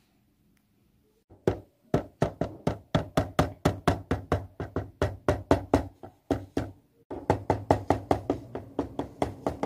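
Quick footstep clicks on a hard floor, about four steps a second, for a doll walking across the room, with a short break about seven seconds in.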